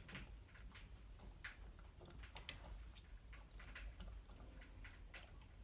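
Faint, irregular crackling and ticking from a wood fire burning in a tent stove, with a low steady background hum.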